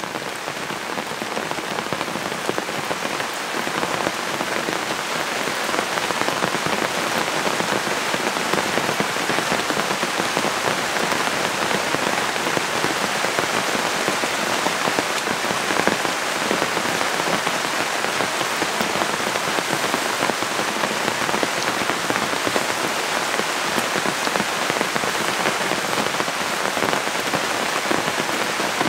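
Heavy rain falling steadily on a tent's fabric shell, a dense, even hiss of drops with no break.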